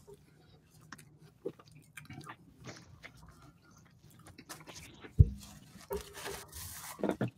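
Close-miked eating sounds: a burrito being bitten and chewed, with small clicks and handling noises and a single low thump about five seconds in.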